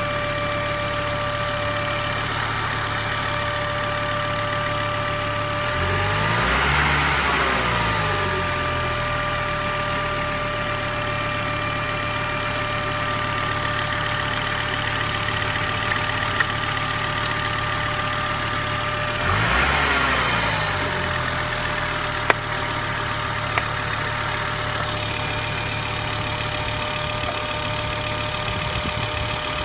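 Volvo 850R's turbocharged five-cylinder engine idling with a steady high whine, revved briefly twice, the pitch rising and falling back each time. The owner hears a weird noise coming from the engine.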